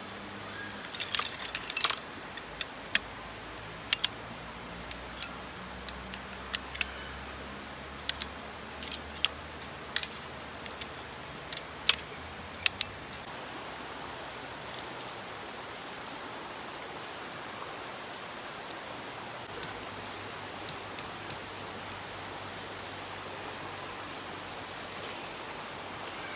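Metallic clinks and clicks of sectional tarp poles being slotted together, many in quick succession in the first half and only a few later, over the steady rush of a nearby river.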